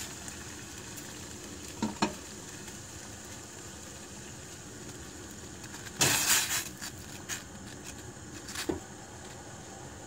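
Rice cake skewers frying in a pan, a steady sizzle. Two quick knocks come about two seconds in, a louder clatter about six seconds in, and another knock near the end.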